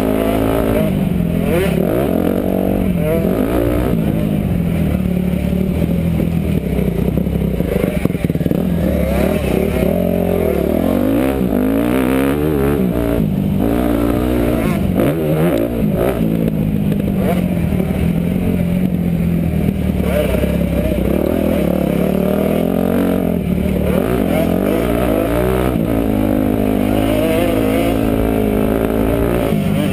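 Motocross dirt bike engine, heard up close from the riding bike. It revs up and drops back again and again as the rider accelerates, shifts and rolls off over the track's hills and jumps.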